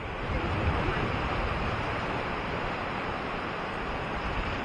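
Small waves washing onto a sandy beach: a steady hiss of surf.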